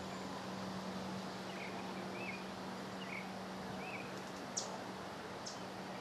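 Outdoor background noise with a steady low hum, over which a small bird gives four short chirps in the first few seconds. Two sharp ticks come near the end.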